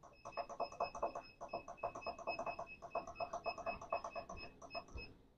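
Sparnod treadmill console beeping rapidly, about six short electronic beeps a second, as the speed-increase button is held and the belt speed steps up; the beeping stops shortly before the end.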